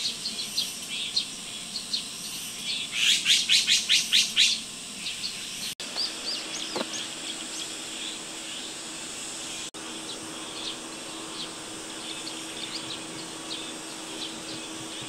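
Small birds chirping on and off, with a loud, fast run of about ten chattering notes about three seconds in. A steady high insect buzz runs underneath.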